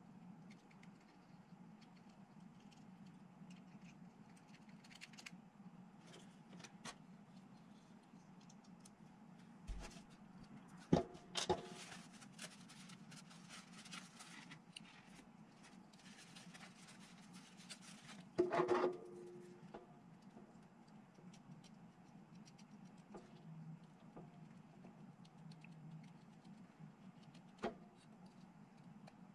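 Quiet handling of plastic miniature parts over a cardboard tray: small clicks and taps, two louder knocks about 11 and 18 seconds in, and the rustle of a cloth rubbed over the parts between them, over a low steady hum.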